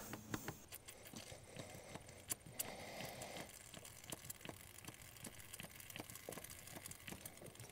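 Hand primer pump on a diesel truck's fuel filter housing being worked by hand: faint, irregular clicks and taps as fuel is drawn up to a dry filter with the bleeder screw open.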